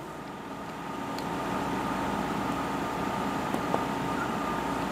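Steady hum of classroom air conditioning, with a couple of high, level tones in it and growing slightly louder. A few faint taps of a marker on the whiteboard come about three and a half seconds in.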